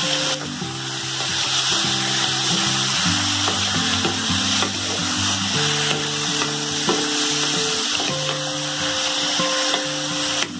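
Chicken pieces frying in a pan of hot oil, a steady sizzle, with background music playing underneath.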